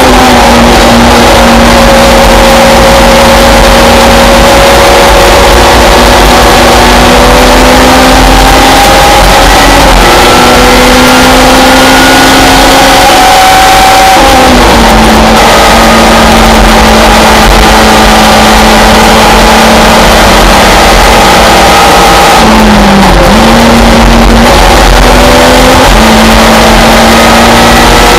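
Simca Rallye 3 race car's four-cylinder engine running at high revs on track, heard from inside the cockpit over constant road and wind noise. The engine note holds mostly steady, then drops sharply at gear changes about four times.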